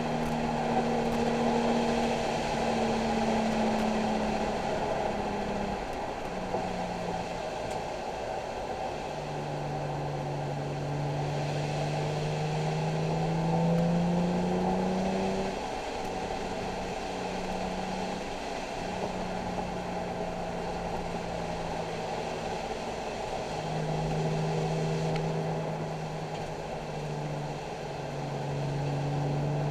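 Nissan 370Z's 3.7-litre V6 engine under hard driving, its pitch climbing through the revs and then dropping again several times as it accelerates and shifts, over a steady hiss.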